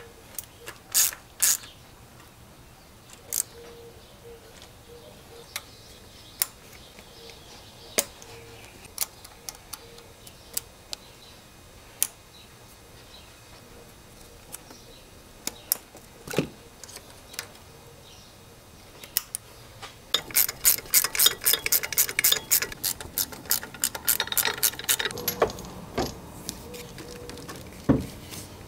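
Hand ratchet wrench clicking: scattered single clicks and taps at first, then a fast, dense run of ratchet clicks about two-thirds of the way through.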